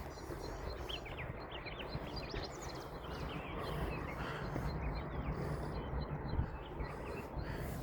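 Small birds chirping with quick rising and falling notes, thickest in the first few seconds, over a steady low rushing background.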